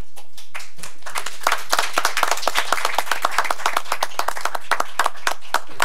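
A small audience applauding: clapping that starts sparse, fills in about a second in, and thins out near the end.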